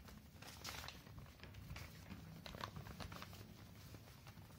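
Faint rustling and creasing of square sheets of paper being folded by hand, with a scattered run of soft crackles.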